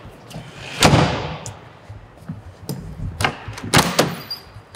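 A metal ambulance compartment door slams shut about a second in, a heavy thud that rings out briefly. Near the end the rear door's latch handle clacks a couple of times as it is worked open.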